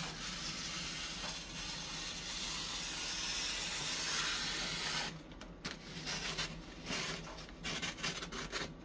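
Scissors gliding through recycled wrapping paper in one long continuous cut, a steady hiss lasting about five seconds, followed by scattered light paper rustles and taps.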